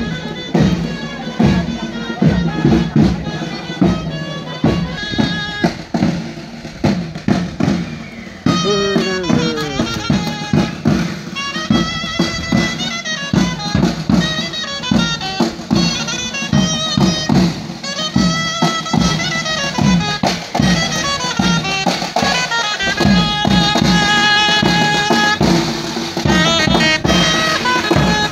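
Traditional folk music: a wind instrument plays a melody over a regular drum beat.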